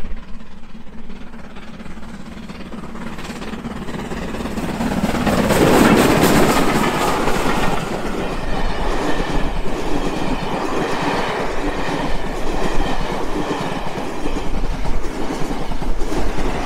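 Steam locomotive and its passenger coaches passing close by, loudest about six seconds in as the engine goes by, then the coaches rolling past with their wheels clattering.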